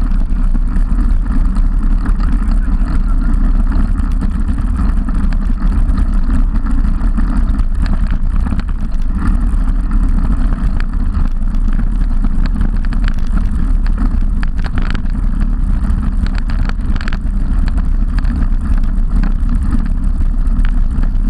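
Steady wind buffeting and road rumble on the microphone of a camera mounted on a road bike riding at speed, with a few sharp clicks and rattles scattered through it.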